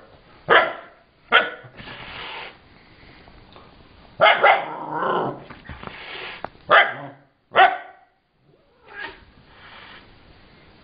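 Siberian husky barking in short, sharp barks, about six spread through the stretch, with a longer, rougher bark-growl a little before the middle.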